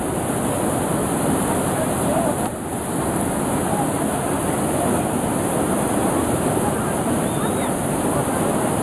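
Fast mountain river rushing over rocks, a loud steady roar of white water, with faint voices over it now and then.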